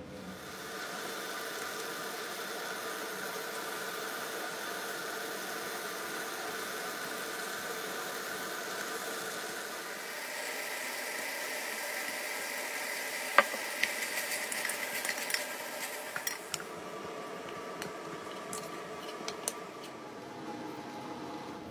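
Steady hum and hiss with a sharp clink about thirteen seconds in, then a run of light clicks and taps of food and utensils against a metal cooking pot.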